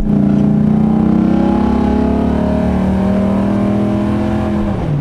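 The 2005 Dodge Ram SRT-10's 8.3-litre Viper V10 pulling at full throttle, heard from inside the cab, its note climbing steadily with the revs. Near the end the pitch drops as the revs fall away.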